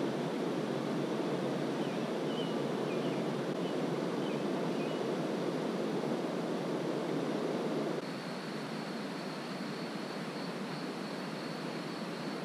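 Steady rushing outdoor ambience. It gets a little quieter about eight seconds in, where a faint high steady whine joins it.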